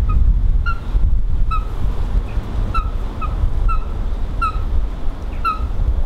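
A Eurasian coot calling, a string of about nine short notes, each slurring slightly downward, over a steady low rumble of wind on the microphone.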